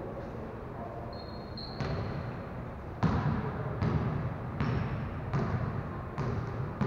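Basketballs being dribbled on a hard gym floor, the bounces coming every second or so and echoing in the large hall. A brief high squeak sounds about a second in.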